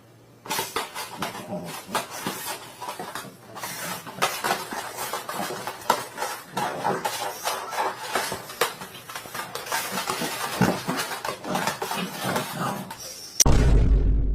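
Continuous irregular clattering and clinking of small hard objects, then a single heavy thump near the end.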